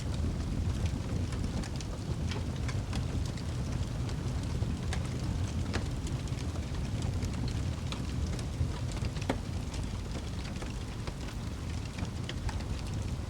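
Fireplace fire burning with a steady low rumble and irregular crackles and pops.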